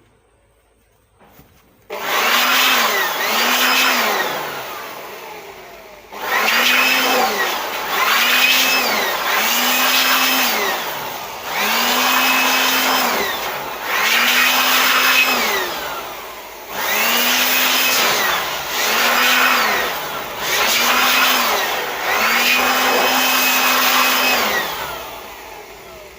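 Handheld electric blower blowing dust out of an amplifier, switched on and off in about a dozen short bursts. Each burst whines up to speed and winds down again.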